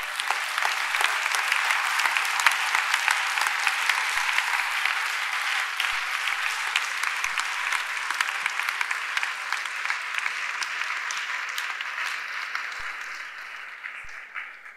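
Audience applauding steadily after a talk, dying away near the end.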